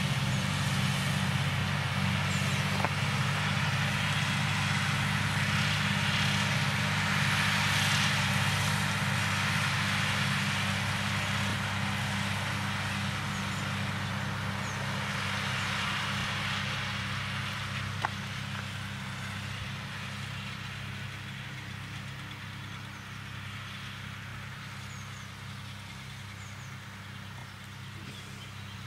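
Tractor engine running steadily under load while its mower cuts grass, slowly fading as the tractor moves away; one sharp click about eighteen seconds in.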